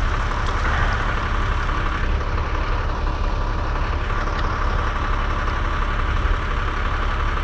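A large engine idling steadily, low-pitched and even, with no change in speed.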